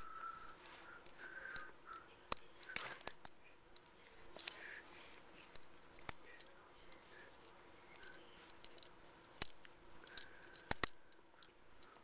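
Metal buckle of a leather belt clicking and jingling as the belt is dangled and batted about by a cat, in scattered light clicks, some in quick clusters.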